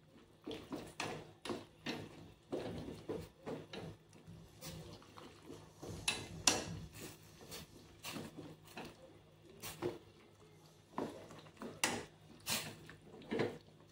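Chopsticks tapping and scraping against a small stainless-steel saucepan while stirring chopped mustard greens in hot water: light, irregular taps, several a second at times.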